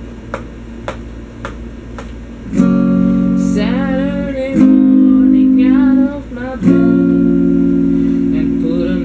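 Electric guitar: a few light plucks and clicks, then from about two and a half seconds in, three strummed chords, each held for a second or two, with a man's voice singing a wavering melody over them.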